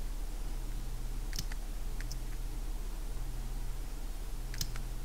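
A few sharp computer clicks, the loudest about a second and a half in and again near the end, over a steady low hum.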